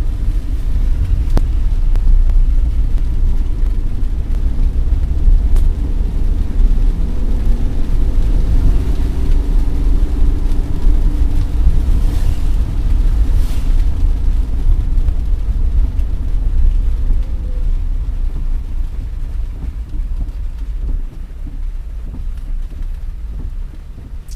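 Vehicle travelling in heavy rain: a steady, loud low rumble of road and wind noise with some engine hum, easing off over the last few seconds.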